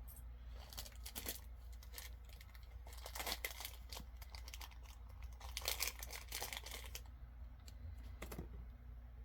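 Small pins and their plastic packaging being handled: light clicks and crinkling in scattered clusters, over a faint steady low hum.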